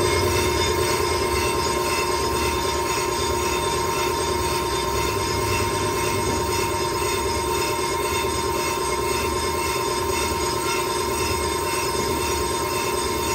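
Brake lathe resurfacing a warped brake rotor: the cutting bit running on the metal disc gives a steady metallic squeal, two held tones over a low machine hum.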